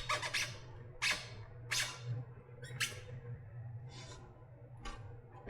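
Short scraping and squeaking noises, about one every second, as an e-bike battery pack's casing is worked apart by hand, over a steady low hum.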